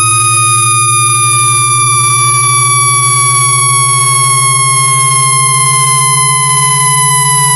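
Synthetic speaker-cleaning test tones, made to vibrate a phone speaker and push trapped water and dust out. A rapidly pulsing low hum runs under several electronic tones: one slowly falls in pitch, another slowly rises, and a thin high whistle holds steady on top.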